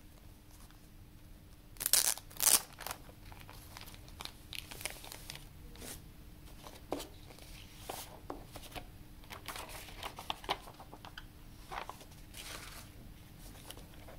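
Plastic shrink wrap being torn open and pulled off a boxed Blu-ray set. Two loud tearing rips come about two seconds in, followed by crinkling and rustling in short bursts.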